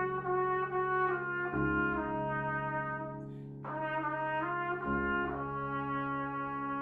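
A brass instrument plays a slow melody over sustained low chords that change about every three seconds. The melody breaks off briefly near the middle and then goes on.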